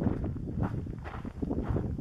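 Footsteps of a hiker walking at a steady pace on a dirt and gravel trail.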